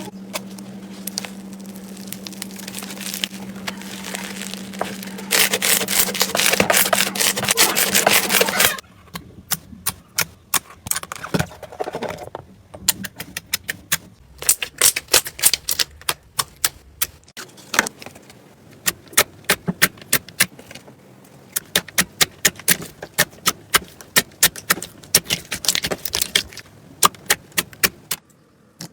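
Slime being squeezed and poked by hand, making wet crackles and pops. For about nine seconds there is dense crackling over a steady low hum. After a cut it becomes sparser, separate clicks and pops.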